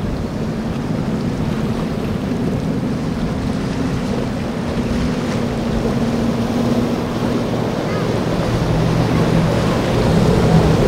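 Boat engine running steadily over breaking surf and wind noise on the microphone, a deeper engine hum coming in and growing louder near the end.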